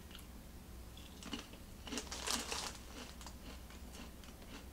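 Ruffles ridged potato chip crunching as it is bitten and chewed, a cluster of crisp crunches about two seconds in.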